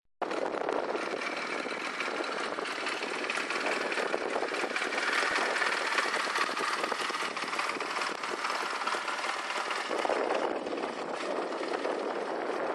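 Honda Rebel CA125's 124 cc air-cooled parallel-twin engine idling steadily.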